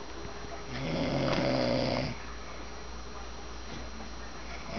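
Snoring from a sleeper: one long snore starting about a second in and lasting over a second, then the next one beginning near the end.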